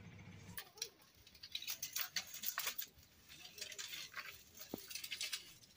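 Dry brushwood twigs crackling and rustling as a bundle is gathered and handled, an irregular run of sharp cracks starting about half a second in.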